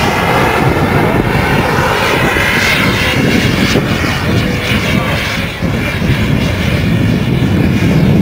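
Miniature gas-turbine engine of a radio-controlled model jet in flight: a loud, steady jet rush that dips briefly about five and a half seconds in.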